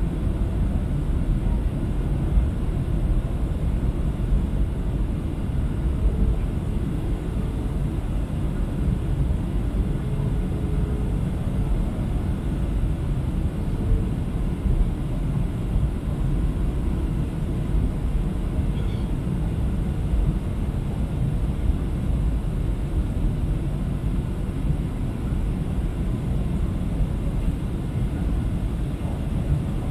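Steady cabin noise inside a Boeing 737-700 airliner in flight: the constant roar of its CFM56 jet engines and the airflow around the fuselage, with a faint hum that comes and goes.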